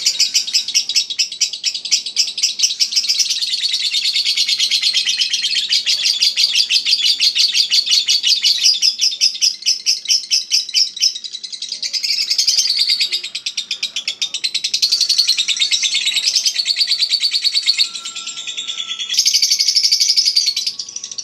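Lovebird ngekek: a long, unbroken run of rapid, high-pitched chattering, the sustained song that contest lovebirds are judged on for its length. The pattern shifts near the end.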